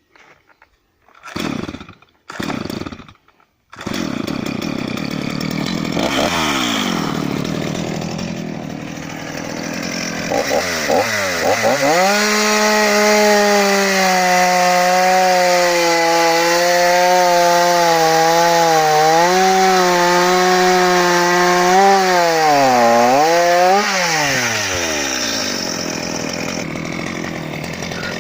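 Stihl 230 C two-stroke chainsaw engine starting after two short bursts, running at a lower speed, then revved up about twelve seconds in and held at high revs, with brief dips in pitch near the end before it drops back down.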